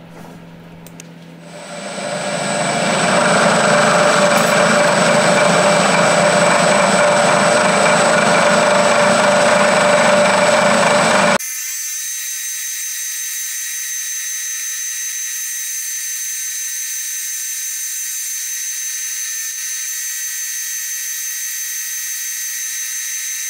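Milling machine end mill facing the top of a metal block: the spindle comes up about a second and a half in and the cut runs loud and steady. About halfway through the sound changes abruptly to a quieter, high-pitched whine as the cutting goes on.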